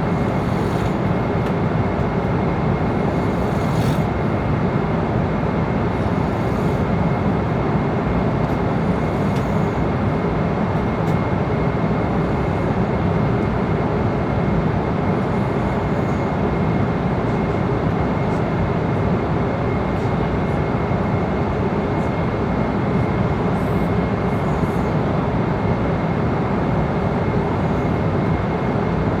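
Airliner cabin noise at cruising altitude: a steady roar of engines and rushing air, with a thin, high, steady whine running over it.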